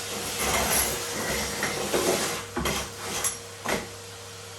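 Irregular rustling and clattering as household items are handled and moved about, with a few short knocks in the second half, over a faint steady hum.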